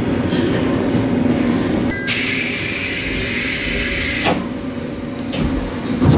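Train running with a steady low rumble, heard from on board. A hiss starts abruptly about two seconds in and stops just as abruptly about two seconds later.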